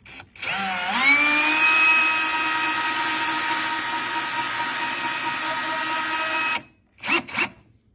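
Power drill driving screws through a cabinet door. The motor gives a brief blip, then spins up with a rising whine and runs steadily for about six seconds before stopping. Two short bursts of the drill follow near the end.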